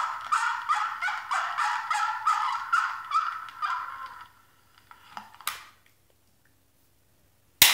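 Vintage Pound Puppy barking plush toy sounding its electronic bark: a rapid string of high-pitched yaps, about three a second, that fades out about four seconds in. A sharp click comes near the end.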